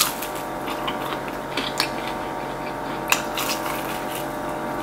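Biting and chewing a crispy fried chicken wing close to the microphone: scattered crunches and wet chewing clicks, with two sharper crunches about two and three seconds in, over a steady low hum.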